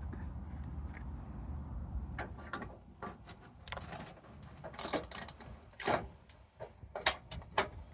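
Metal parts of an air conditioner being handled and taken apart for scrap: a run of sharp knocks, clicks and rattles, the loudest about three and a half seconds in, after a low rumble in the first couple of seconds.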